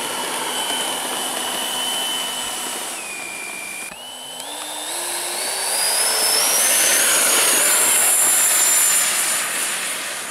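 RC model jet of the Su-27 Flanker type, its jet engine whining steadily, dipping briefly, then spooling up to takeoff power in a stepwise rising whine from about four seconds in. The rush grows louder and holds at full power through the takeoff roll.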